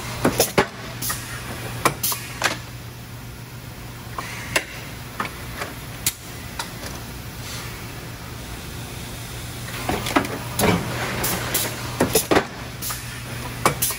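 Industrial machinery running in a guarded robot cell: a steady low hum under scattered sharp clacks and knocks, with spells of hiss a few seconds in and again near the end.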